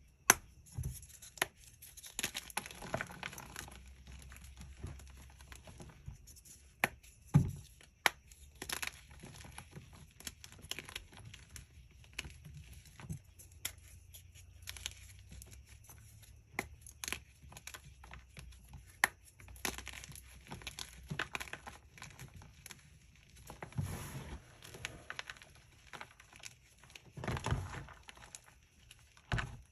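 Hands crushing a dyed gym chalk block: sharp cracks and crunches as the block snaps, with soft crumbling and gritty rustling of the powder between. The loudest snaps come just after the start and about seven seconds in.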